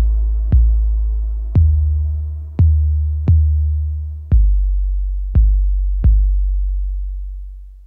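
Electronic background music: deep bass-drum hits about once a second, each ringing out long and low over a faint synth pad, fading away near the end.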